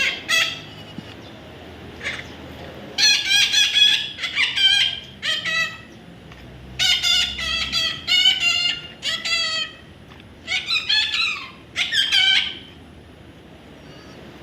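A baby parrot calling in several bouts of rapid, repeated high-pitched calls, with short pauses between the bouts.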